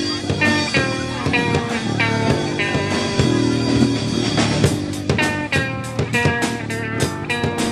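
Live rock trio playing: an electric guitar picks a line of single notes over bass. Drum hits come in thickly about two-thirds of the way through.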